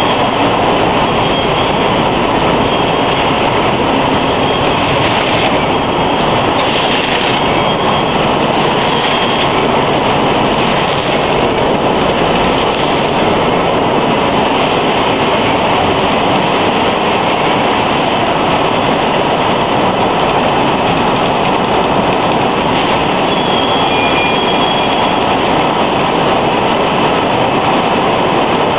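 Loud, steady din of a mineral-water bottling and packing line running: conveyors and machinery clattering and rumbling without a break, with a faint high squeal now and then.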